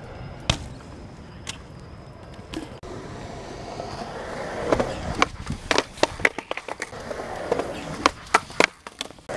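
BMX bike landing with a single thump about half a second in. Then skateboard wheels rolling on concrete, growing louder as the board approaches, with a rapid run of sharp clacks in the second half from the wheels and board knocking over the joints and ledge.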